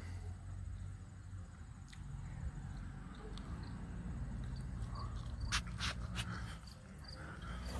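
Used tractor transmission oil pouring from a plastic drain pan into a plastic jug, a faint steady pour with a few sharp clicks about five and a half to six seconds in. Crickets chirp faintly.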